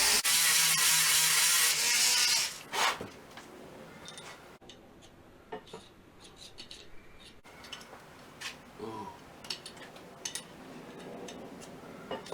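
A Dremel rotary tool grinding the hardened steel out of a sprocket's bore, loud and steady, stopping about two and a half seconds in. After that come scattered light metallic clicks and clinks as the steel sprocket and axle are handled.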